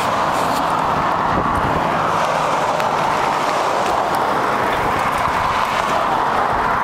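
Steady rushing noise of a bicycle being ridden on pavement, picked up by a camera mounted on the bike's frame: air and tyre noise with no break.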